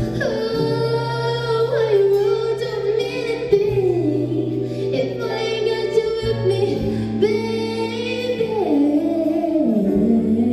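A woman singing long held notes over instrumental backing, with sustained bass notes underneath.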